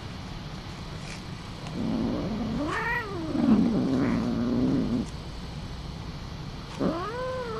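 Young cat yowling in complaint as tape and splints are peeled off its leg: a long call about two seconds in that rises and falls in pitch over a low steady moan, then a second, shorter call near the end.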